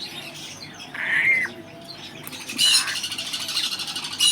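Young grey parrot calling: a short call about a second in, then a harsh squawk followed by a rapid rattling buzz and another squawk near the end.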